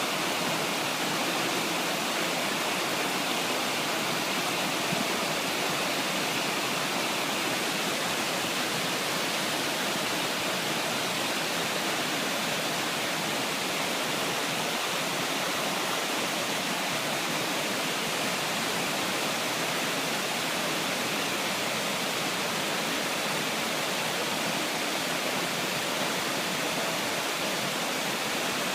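Steady rushing of flowing river water, an even noise with no change or break.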